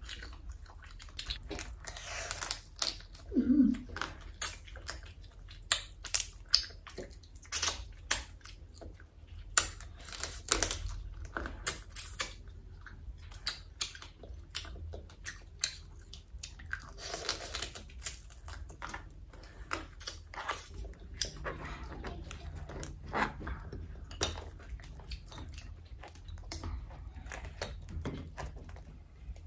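Chewing, biting and crunching while eating fried crab, a steady run of irregular crunches and sharp clicks. Near the end the crab shell is pulled apart by hand.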